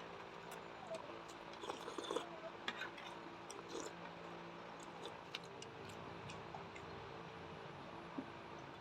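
Faint close-up eating sounds: scattered small clicks and mouth noises of chewing, mostly in the first half, over a steady low hum.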